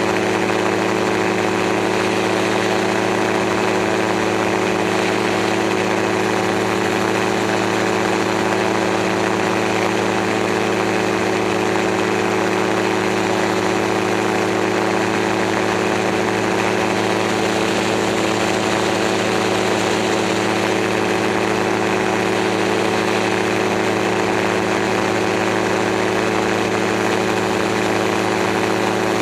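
Gyroplane's engine and propeller running steadily at constant power in flight, heard from a camera mounted on the aircraft, under an even rush of air noise.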